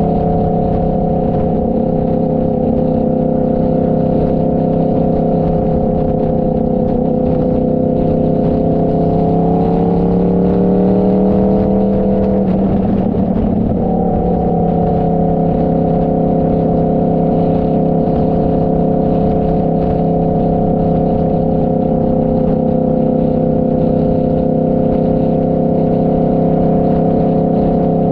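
Motorcycle engine running steadily at cruising speed while riding. About eight seconds in its pitch climbs for a few seconds and turns rough briefly, then it drops back to the same steady note.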